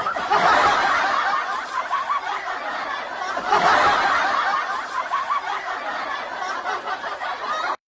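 People laughing and snickering, with louder swells of laughter twice, cutting off suddenly near the end.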